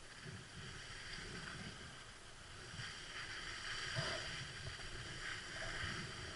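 Skis hissing as they slide over snow, with wind rumbling on the microphone. The hiss grows about three seconds in, and there is a single knock about four seconds in.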